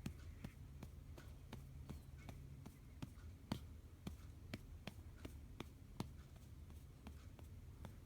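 Gentle, steady pats on a baby's back to bring up a burp, about two soft taps a second.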